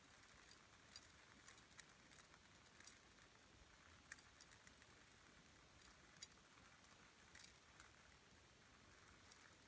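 Faint, irregular patter of water drops over a steady low hiss: a rain sound effect being made for recording.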